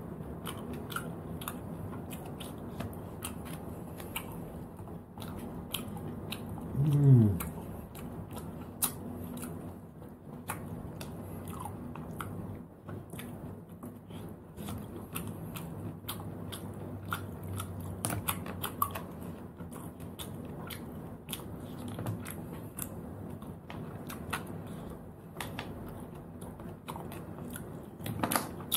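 Chewing and many small clicks as cooked sea snails are picked out of their shells with a toothpick and eaten. About seven seconds in there is one short, louder throat sound that falls in pitch.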